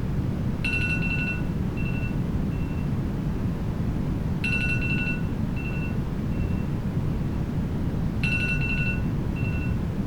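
Steady brown noise with an electronic alarm beep sounding three times, about four seconds apart; each beep is followed by two shorter, fainter echoing repeats.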